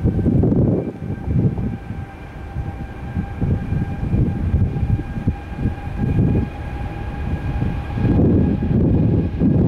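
Jet airliner's engines rumbling with a steady whine over it, while gusts of wind buffet the microphone in uneven surges.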